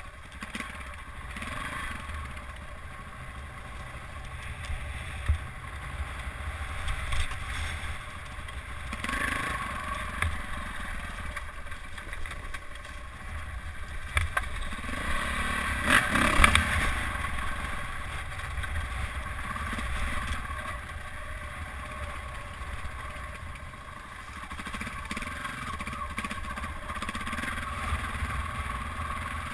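Dirt bike engine revving up and easing off over rough singletrack, with its loudest hard rev about halfway through.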